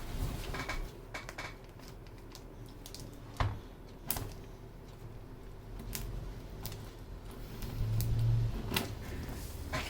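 Key presses on a Skyloong SK61 keyboard with Gateron optical switches: a quick run of clicks in the first second and a half, then single keystrokes about a second apart. A low hum swells briefly about eight seconds in.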